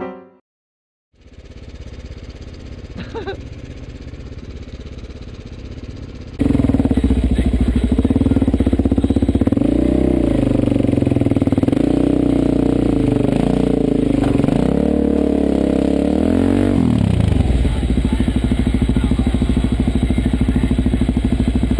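Dual-sport motorcycle engine heard from the rider's helmet while riding a rough dirt trail. It starts quieter, jumps much louder about six seconds in, and its pitch rises and falls with the throttle before settling to a steady pitch near the end.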